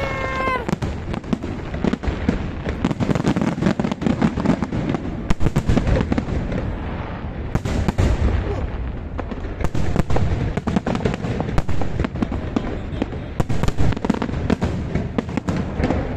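Aerial fireworks display: shells bursting in a dense, unbroken run of bangs and crackles, many a second, over a low rumble.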